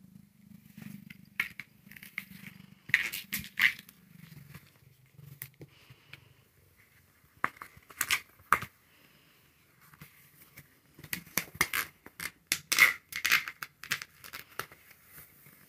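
Clear ribbed plastic lamp globe scraping and rubbing over blankets as it is rolled and spun with a cat inside, with the hand and paws knocking against the plastic. The scrapes come in irregular bursts, heaviest near the middle and again near the end.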